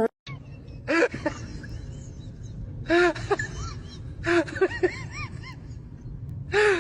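Short, high-pitched vocal calls, each rising and falling, over a steady low background noise. One comes about a second in, another around three seconds, a quick run of several follows a little later, and one more comes near the end.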